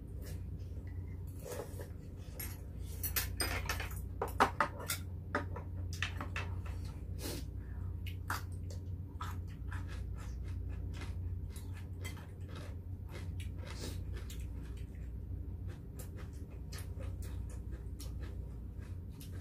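Metal spoons and chopsticks clinking and scraping against earthenware soup pots and plates as two people eat noodles and beef short rib soup, with occasional slurping. A denser run of sharper clinks comes about three to five seconds in, over a steady low hum.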